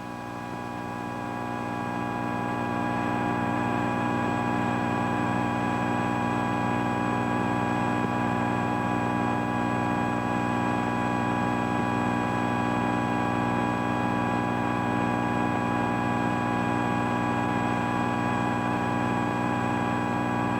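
Steady drone of a police helicopter's engine and rotors heard from inside the cabin: an unchanging hum made of many held tones over a hiss. It fades up over the first few seconds, then holds level.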